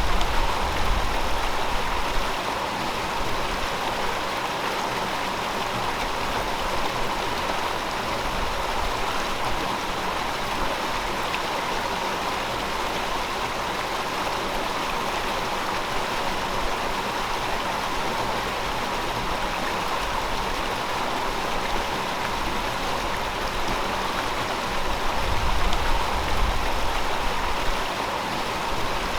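River water flowing over rocks in a steady, continuous rush. A low rumble swells briefly near the start and again near the end.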